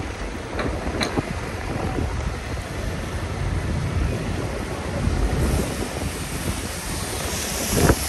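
Busy city street in the rain: a steady wash of traffic and tyre noise on wet road, with low wind rumble on the microphone. A hiss swells about two-thirds of the way through, and a short thump near the end is the loudest moment.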